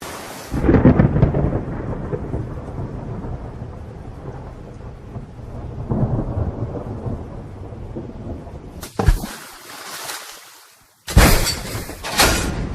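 Thunder rumbling in long rolling swells, with a sharp crack about nine seconds in and loud, bright bursts near the end.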